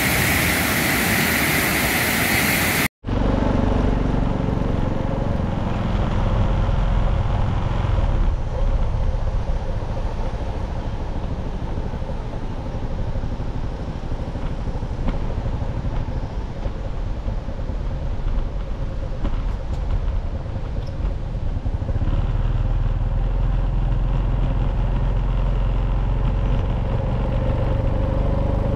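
Dam spillway discharging floodwater with a loud, steady rush for about three seconds, then a sudden cut to a motorcycle engine running steadily while riding.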